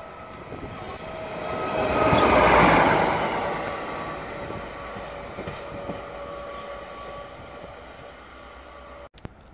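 Yellow self-propelled rail maintenance vehicle with a crane passing close by on the track: its engine and wheel noise swell to a peak about two and a half seconds in, then fade as it moves away. A short pop near the end.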